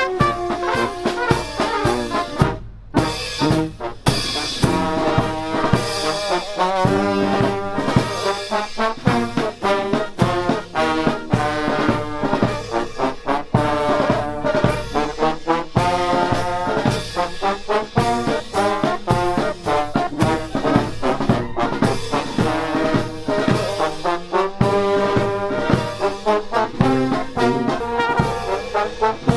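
Military brass band playing while marching: trumpets, trombones, tubas and saxophones in harmony over a steady drum beat, with a brief break about three seconds in.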